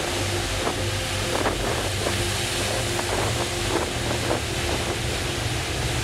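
Waves breaking and washing over shoreline rocks, with wind rushing across the microphone.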